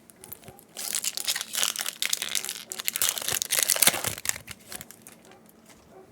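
A Yu-Gi-Oh booster pack's foil wrapper crinkling and tearing as it is torn open, a dense crackle starting about a second in and stopping about four seconds in.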